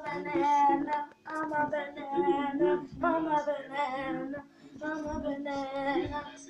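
A high singing voice carrying a melody in short phrases with brief breaks, over a steady low backing note.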